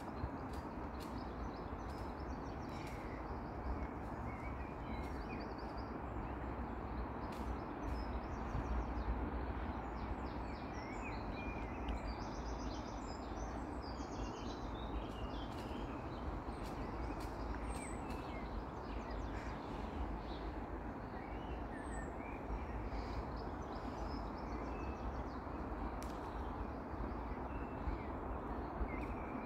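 Garden ambience: a steady background rumble with small songbirds chirping now and then in short high notes.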